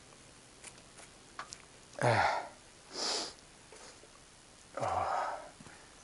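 A person sniffing and snorting through the nose three times, in short breathy bursts about two, three and five seconds in. The first and last carry a low grunt.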